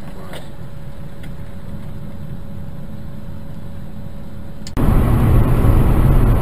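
Vehicle driving, heard from inside the cab: a steady low engine and road rumble with a faint steady hum. About 4.7 s in it cuts abruptly to louder road and engine noise from a car at highway speed.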